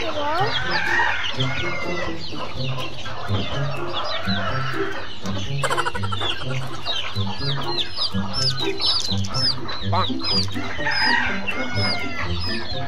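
A flock of young chickens peeping and cheeping over one another, many short high calls overlapping throughout. Background music with a steady low beat runs beneath.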